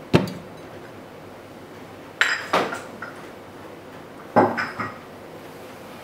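Crockery clinking and knocking: a coffee cup handled and set down in three short bursts, each a sharp knock with a brief ring, the first the loudest.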